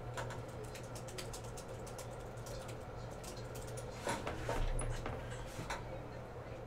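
Typing on a computer keyboard: a run of quick clicks and taps, heavier for a second or two near the end, over a steady low hum.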